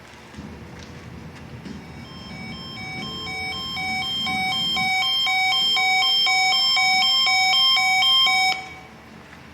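Emergency alert broadcast's electronic two-tone signal. It warbles back and forth between two pitches a few times a second, swells up over several seconds, then cuts off suddenly.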